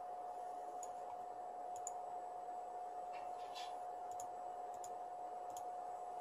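Computer mouse clicking about eight times, several of the clicks in quick pairs, over a steady high-pitched hum. A brief soft rustle comes about three seconds in.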